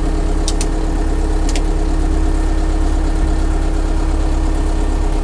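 Siromer MK40's 40-horsepower four-cylinder diesel engine idling steadily, heard from inside the cab, with a few light clicks in the first couple of seconds.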